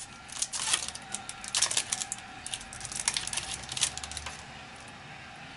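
Trading cards being handled and flipped through: a quick run of crisp clicks and rustles that stops about four and a half seconds in.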